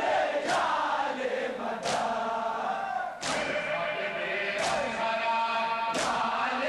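Crowd of men chanting a mourning chant together, with hands slapping bare chests in unison in Shia matam. The slaps land together about every second and a half, five times.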